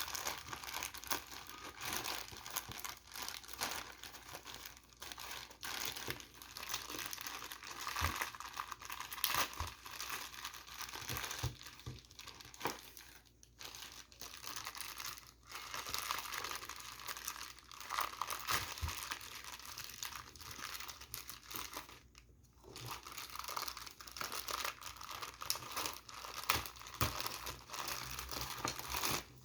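Plastic packaging of a boxed prize figure being handled and pulled open, crinkling almost continuously with some tearing and a few brief pauses.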